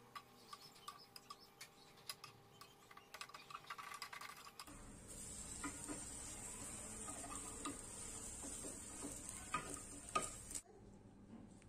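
Egg omelette sizzling in a rectangular nonstick pan while a metal spatula scrapes and taps against the pan, folding and rolling it. The first half is mostly quick clicks and scrapes; after that a steady sizzle dominates, with a few louder knocks of the spatula shortly before the end.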